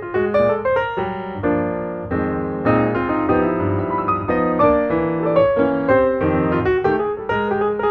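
Background piano music, a steady stream of notes.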